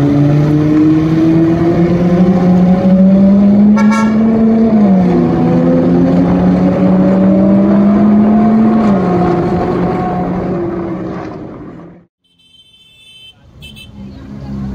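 Ferrari 458's V8 exhaust accelerating hard. Its note climbs steadily, drops with an upshift about five seconds in and again about nine seconds in, then fades away and cuts off near the end. Short high beeps sound about four seconds in and again near the end.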